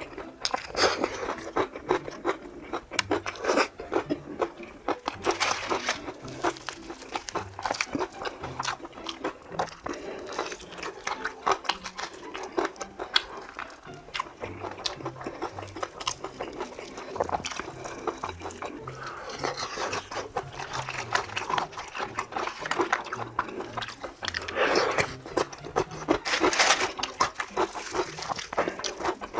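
Close-up crunching and chewing of crispy fried chicken, irregular and continuous, with a soft background music bass line underneath.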